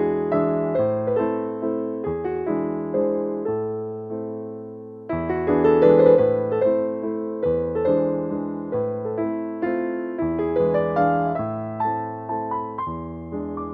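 Solo piano music: a steady flow of struck notes and chords, each fading away, with a louder passage starting about five seconds in.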